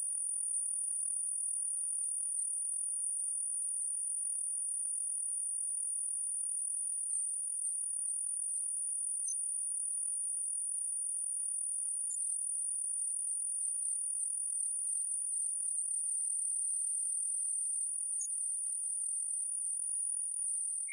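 A steady, high-pitched whine that holds one pitch without change.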